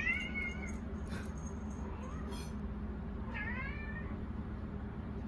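A domestic cat meowing twice: a long call at the start, a fainter short one, then another drawn-out meow about three and a half seconds in, begging for a treat. A steady low hum runs underneath.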